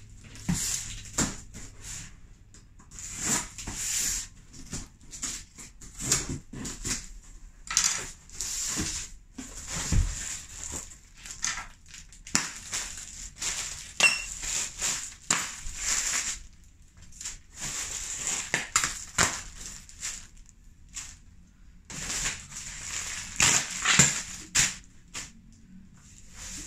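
Plastic packing material being pulled out of a cardboard shipping box: irregular crinkling and rustling of air-pillow and bubble wrap, with cardboard scraping and a thump about ten seconds in.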